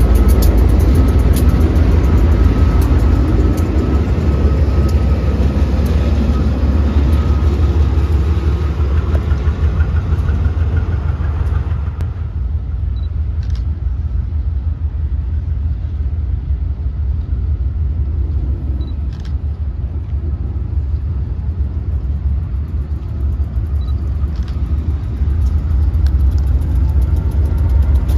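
GE B40-8 diesel locomotives running close by: a deep, heavy engine rumble with a steady whine over it. About twelve seconds in, the sound abruptly turns quieter and duller, with the rumble of a locomotive creeping slowly along the track; it grows louder near the end, with a slightly rising whine.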